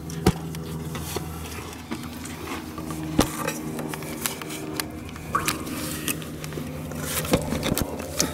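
Rubber radiator bleed hose being worked onto a brass bleeder valve's barbed ends by nitrile-gloved hands: squishing, rubbing and scraping, with a few sharp clicks of metal, over a steady low hum.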